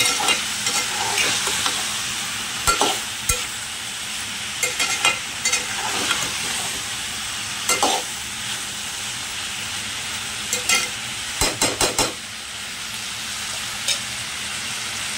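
Boneless chicken, onion, capsicum and carrot sizzling in an aluminium pot while a steel spoon stirs and turns them, scraping and knocking against the pot in scattered clicks. The chicken is giving off its juices, and the vegetables cook in them.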